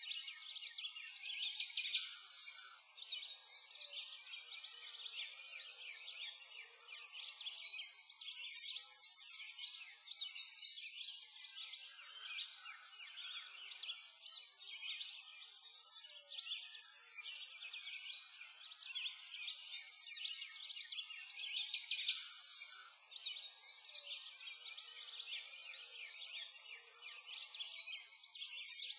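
Many small birds chirping and singing at once in a steady, high-pitched chorus, with no low sounds beneath it.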